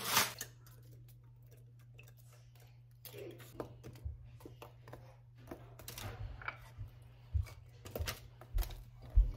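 Whole garlic cloves dropped and placed onto sliced onions and potatoes on a parchment-lined baking tray: scattered light taps and paper rustles from about three seconds in, with a few duller knocks near the end.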